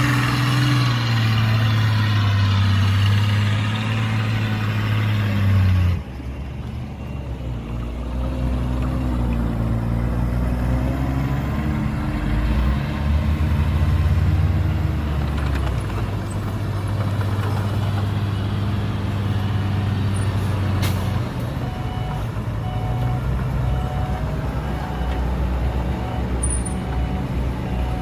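Heavy diesel engine of earthmoving machinery (dump truck or bulldozer) running under load, its pitch rising and falling. The sound changes abruptly about six seconds in, and a single sharp click comes near the end.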